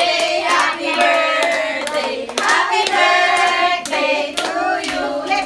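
A group of voices singing together, with several people clapping along in time.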